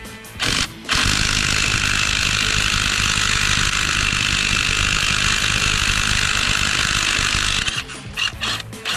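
Cordless impact wrench hammering on the crankshaft pulley bolt to undo it: a brief blip, then about seven seconds of steady hammering, then a few short bursts near the end.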